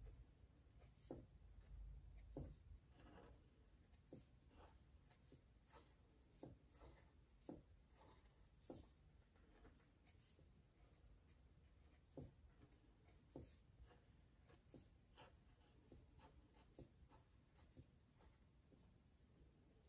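Faint scratching of a black felt-tip marker on paper as small circles are drawn, in short irregular strokes about a second apart.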